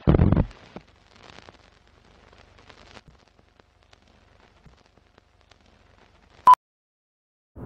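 Film-countdown-leader logo sting: a loud, deep thump at the start, then faint crackle and scattered clicks like old film running, and about six and a half seconds in a single short, sharp beep.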